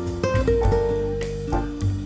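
Instrumental background music with plucked guitar notes over a bass line.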